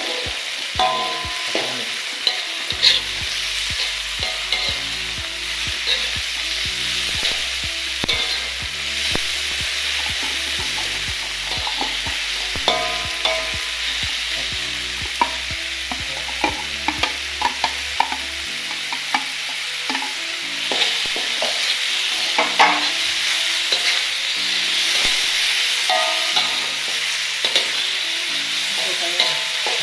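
Sliced button mushrooms and vegetables sizzling as they are stir-fried in a wok. A spatula keeps scraping and clacking against the pan.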